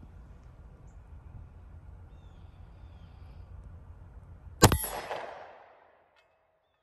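A single shot from a Springfield Armory XD pistol about two-thirds of the way in, its report trailing off over about a second. Before the shot, a low rumble.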